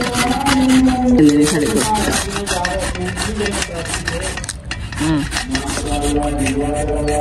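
Carrots being grated by hand on a grater: quick, rhythmic rasping strokes, one after another.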